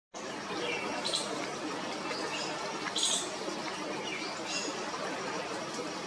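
Short, high bird calls, about five of them scattered over a few seconds, the loudest about three seconds in, over a steady outdoor background hiss.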